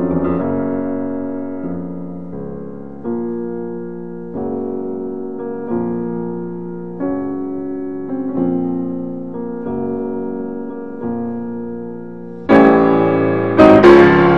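Background piano music: slow held chords, each struck and then fading, with a new chord every second or so. Near the end a louder, brighter passage with sharp struck notes comes in.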